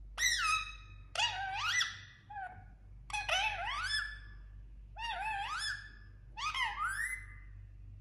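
Indian ringneck parakeet calling in five short bursts, each call sliding up and down in pitch.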